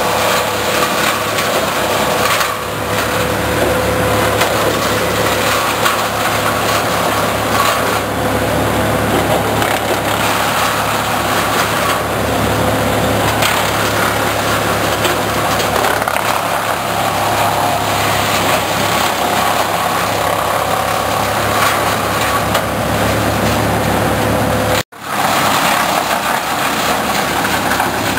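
Towable wood chipper running at full speed while whole spruce trees are fed in and shredded: a loud, steady engine din mixed with the noise of branches and needles being chipped. It drops out for an instant near the end.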